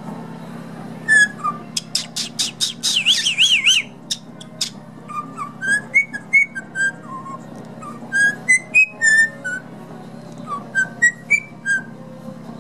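White-bellied caique whistling a string of short notes mixed with quick clicks, with a warbling trill about three seconds in. A low steady hum runs underneath.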